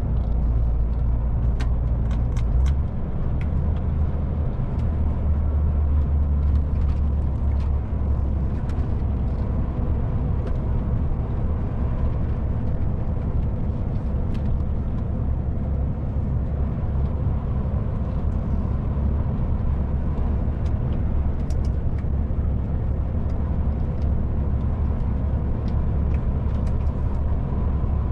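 MAN TGX 440 truck's straight-six diesel engine heard from inside the cab while driving, a steady low drone with road noise. Scattered light clicks and rattles come through over it.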